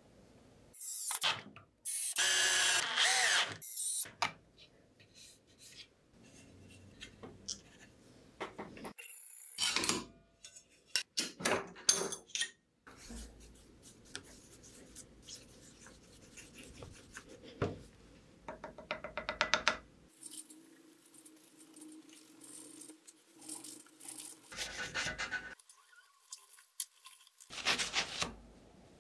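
A run of short, separate workshop handling sounds: rubbing, scraping and small knocks of hand work on wood and metal, with a louder stretch of noise about two to four seconds in and another burst near the end.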